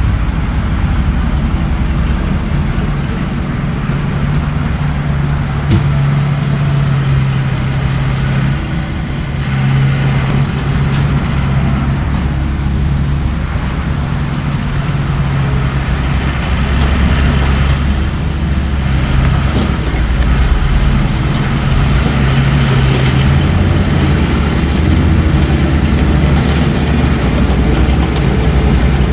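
Bulldozer's diesel engine running steadily, its low note wavering up and down as it works.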